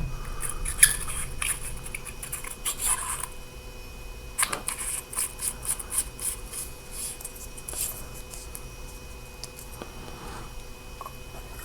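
Flashlight parts being handled: scattered light clicks and short scraping and rubbing sounds as the barrel, head and tail cap are handled and put back together, thinning out in the second half.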